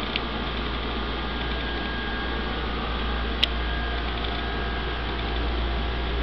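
Aquarium equipment (powerhead pumps and a hang-on-back filter) running: a steady low electric hum under a constant hiss of moving water. Two brief clicks, one just after the start and a sharper one about three and a half seconds in.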